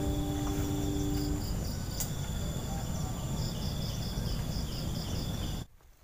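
Forest insects trilling steadily at a high pitch, with a pulsing chirp of about four a second joining about three seconds in, over a low rumble. A short, steady low hum stops about a second and a half in. The sound cuts off sharply near the end.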